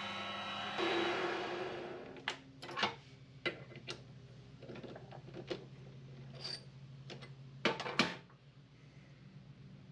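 A low steady machine hum with a brief swell of noise, then a string of sharp, irregular clicks and knocks, like metal parts being handled. The two loudest knocks come together just before the hum stops, near the end.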